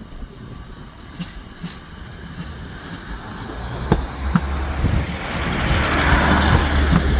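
A diesel multiple unit passing close by: a low rumble that builds over the last few seconds, with a few clanks of wheels over rail joints from about four seconds in.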